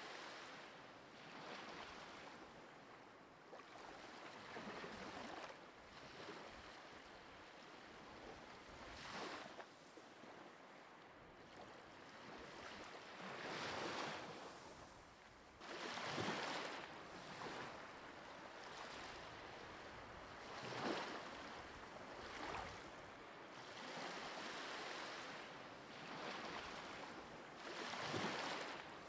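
Faint sea surf: waves washing in, swelling and easing every few seconds.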